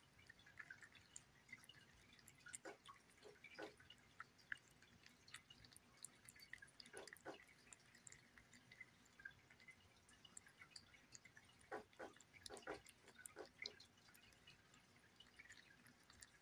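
Kitten licking and chewing soft wet cat-food pâté off a glass plate: faint wet smacking and clicking, with short clusters of louder smacks about three seconds in, around seven seconds, and again around twelve to thirteen seconds.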